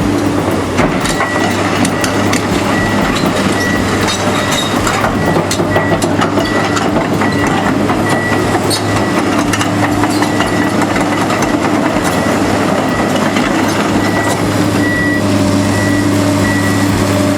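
A heavy construction machine's diesel engine running steadily, with a high, evenly repeating beep like a travel or backup alarm for most of the time, and scattered clanks and knocks.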